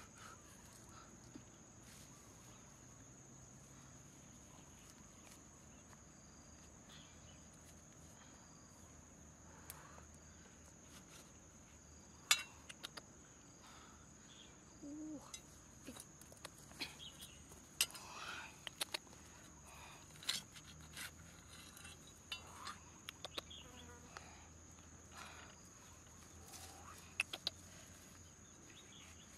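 Steady high-pitched drone of insects, crickets, running throughout, with scattered light clicks and rustles of white mushrooms being snapped off a rotting log by hand, more frequent in the second half.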